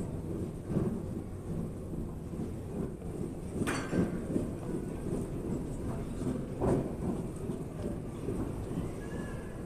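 Steady low rumble of an airport terminal waiting hall, with two sharp knocks, one just before the middle and one about two-thirds of the way through.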